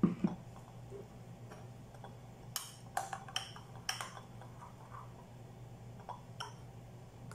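Metal spoon clinking against a ceramic bowl and saucer while stirring oatmeal: a dull knock at the start, then several sharp, separate clinks, each with a brief ring.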